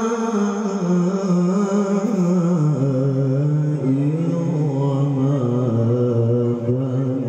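A male qari reciting the Quran in melodic tilawah style through a handheld microphone, holding long ornamented notes. About two and a half seconds in, the melody steps down to a lower held note.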